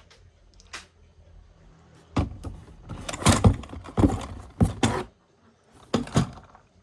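Toy vehicles being handled during unboxing: a few faint clicks, then from about two seconds in a run of loud knocks and scrapes.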